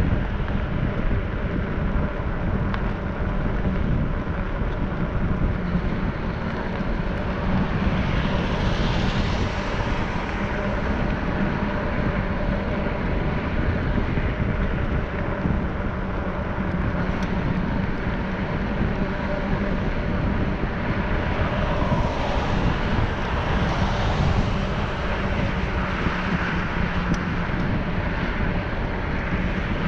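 Steady rush of wind and running noise from riding along a paved trail, with a constant low hum underneath. Traffic on the adjacent highway swells past about a third of the way in and again later on.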